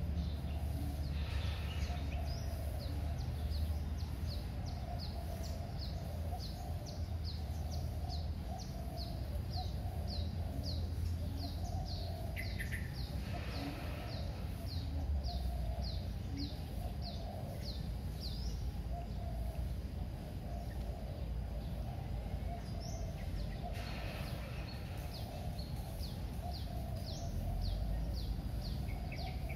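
A bird repeating a short, high, downward-sliding chirp about twice a second, pausing for a few seconds past the middle and then starting again, over a steady low rumble.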